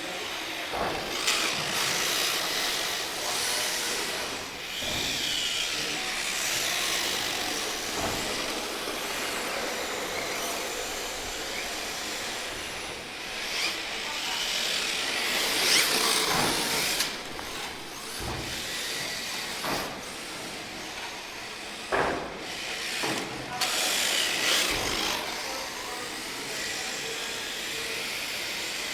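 Radio-controlled drift car running on a track: a steady hissing scuff of tyres sliding, with a few sharp knocks scattered through.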